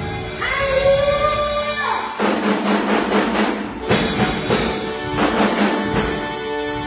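Music with drums and percussion and singing; a voice holds one long note that ends about two seconds in, and the drum strokes carry on after it.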